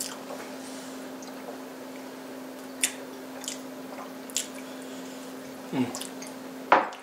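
Table-side eating sounds: soft wet chewing and a few light clicks of a fork and spoon on a plate, over a steady low hum. Near the end comes the loudest sound, a sharp knock as a drinking glass is set down on the table.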